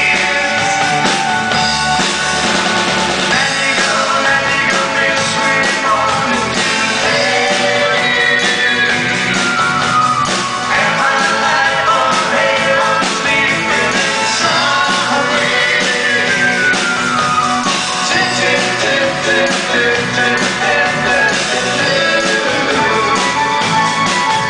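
Live pop-rock band playing a song, with sung lead vocals over acoustic guitar, bass guitar, drums and keyboards.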